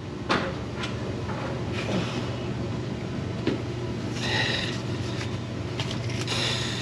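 Scattered light clicks and short scrapes of hand work with bolts and a socket while a starter is fitted, over a steady low hum.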